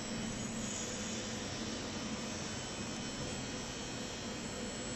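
Steady machinery hum with a constant hiss, unchanging throughout: the background noise of an industrial welding hall.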